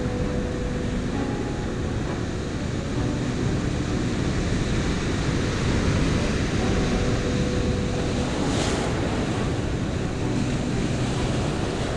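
Surf breaking and foamy waves washing up a sandy beach, with wind buffeting the microphone. A brief sharper hiss stands out about two-thirds of the way through.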